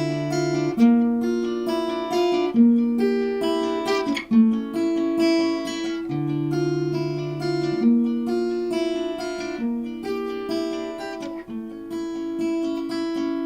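Acoustic guitar playing the instrumental close of a song, single plucked and strummed chords every second or two, the last chord left ringing.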